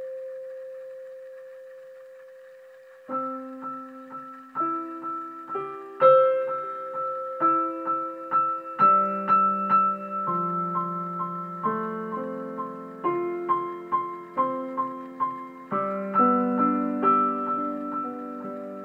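Solo piano music. A held note fades away over the first three seconds, then a slow melody over repeated chords begins about three seconds in and continues steadily.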